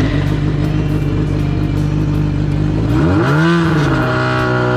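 Kawasaki Zephyr 400χ's air-cooled inline-four running at idle, then blipped about three seconds in: the revs rise and fall back, with a smaller rise near the end. The engine is revved to test the alternator's charging voltage with a tester on the battery, and the voltage rises, showing the alternator is charging.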